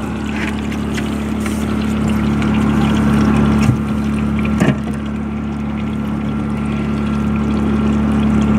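A small motor aboard the boat runs with a steady low hum and a faint higher whine over it. A couple of light knocks come about four seconds in.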